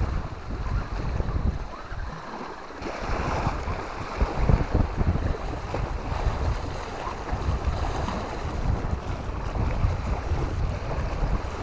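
Wind buffeting the microphone: an uneven, gusting low rumble with a steady hiss above it.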